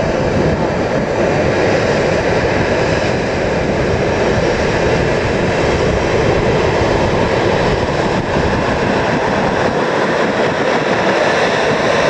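Jet aircraft engine noise, loud and steady, as a jet airliner passes close by on the runway or in the air at the airport. It starts abruptly at the outset and holds evenly without clear rise or fall.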